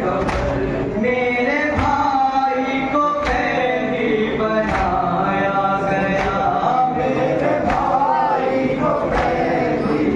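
Men chanting a noha (Shia lament) in unison, led by a male reciter on a microphone, with a sharp slap of chest-beating (matam) keeping time about every second and a half.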